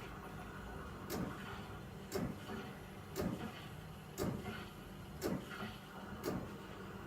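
Tchibo Cafissimo capsule coffee machine frothing milk in steam mode: a steady low hum with a sharp mechanical pulse about once a second.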